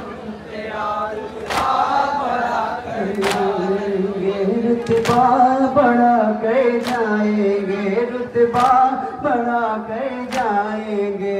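Male voices chanting a nauha (a Muharram lament) over a microphone, with a sharp chest-beating slap of matam about every one and three-quarter seconds, six in all.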